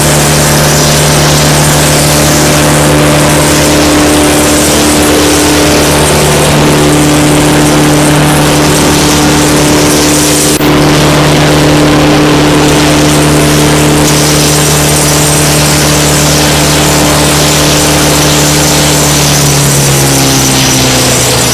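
Caterpillar diesel engine of a Morbark Blizzard 12 drum wood chipper running at working speed with the chipper drum engaged and spinning. The engine note holds steady, then drops in pitch near the end as the revs come down.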